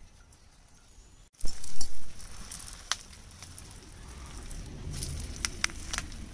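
A leaf-wrapped parcel being handled and turned in a shallow pan over a wood fire: leaf rustling and scraping against the pan, with a few sharp crackles. There is a louder burst of handling noise about a second and a half in.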